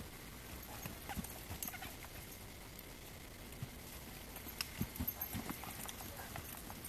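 Horse's hooves thudding and scuffing in arena sand as it stops, turns and moves off, in two clusters of irregular steps about a second in and again near five seconds, over a steady hiss.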